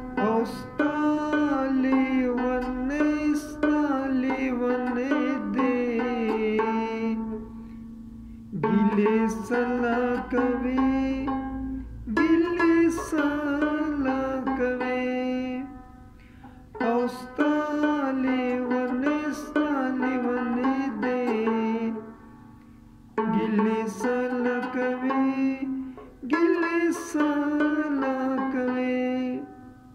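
Rabab plucked, playing a melody in phrases a few seconds long with short pauses between them.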